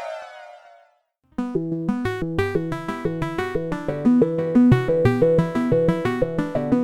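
Modular synthesizer: a falling sweep fades out within the first second, then after a brief silence a fast, steady sequenced pattern of short notes at several pitches begins.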